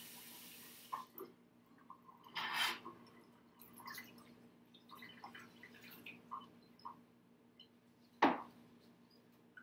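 A kitchen tap runs for about a second and shuts off. Scattered light clinks and knocks of kitchen utensils and cookware follow, with a short rushing noise about two and a half seconds in and a sharp knock near the end.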